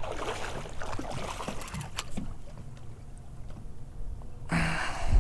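Water sloshing and splashing against a small boat's hull as a hooked fish is reeled in beside it, with a low rumble throughout, small clicks in the first two seconds and a short louder burst of splashing near the end.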